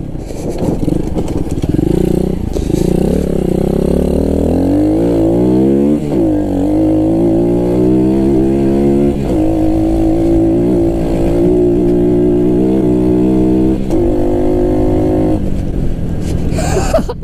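Pit bike's single-cylinder engine being ridden hard off-road, revving up and dropping back several times, with a steadier stretch in the middle before the throttle eases off near the end.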